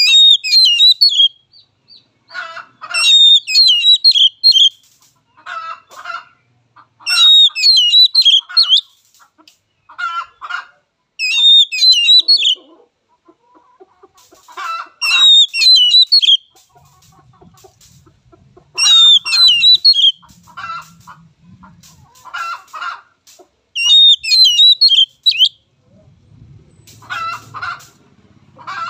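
Oriental magpie-robin (kacer) singing loud, rapid whistled phrases in repeated bursts every few seconds, with shorter, lower chattering notes between them.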